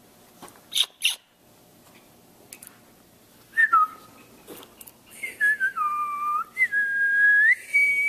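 Clear whistled notes: a short falling whistle about three and a half seconds in, then from about five seconds a run of held whistled notes that step down and back up like a tune. Two sharp clicks come about a second in.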